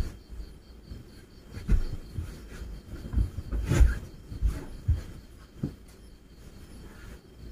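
Cloth rustling and a string of dull thumps and knocks as a person in a cloth shroud shifts a blanket and settles down on a floor mattress, the sharpest knock a little under four seconds in. A faint rapid ticking sounds high up in the first couple of seconds.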